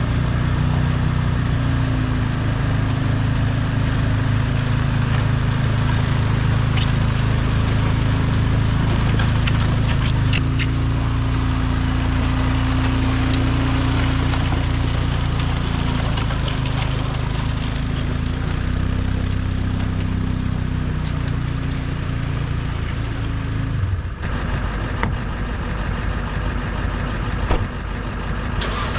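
A large engine running steadily, the machine he calls "the beast", with a dip and change in its note about 24 seconds in.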